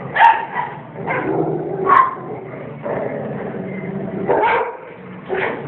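Several dogs barking, with about four sharp barks standing out over a continuous layer of other dogs' whining and vocalising.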